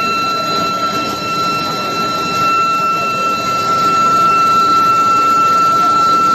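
Steel billet induction heating furnace running, giving a steady high-pitched whine over a broad, noisy mechanical background.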